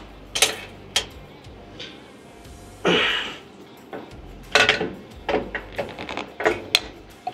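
Scattered metal clicks and clinks of a hand tool and fittings being worked at the clamps and flange of an engine bleed-air duct valve, coming in a quicker cluster in the second half. A short rustling rush about three seconds in.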